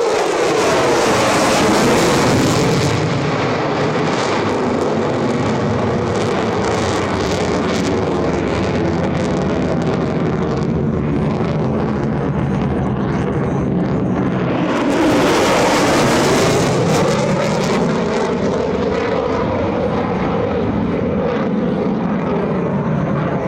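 Jet noise from a U.S. Navy F-35C Lightning II's F135 afterburning turbofan as the fighter flies by, loud and continuous. It swells near the start with a falling pitch sweep, then swells again about fifteen seconds in as the tone sweeps up and back down.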